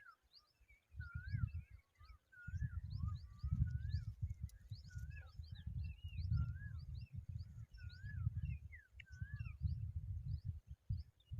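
Birds calling: a steady run of short, rising high chirps mixed with repeated curled whistle notes, a few per second. Underneath, a low rumble comes and goes in gusts.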